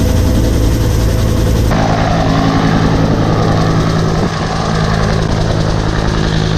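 Vietnam-era military helicopter in flight, its rotor and turbine running loud and steady, heard from inside the cabin. The sound shifts abruptly a little under two seconds in.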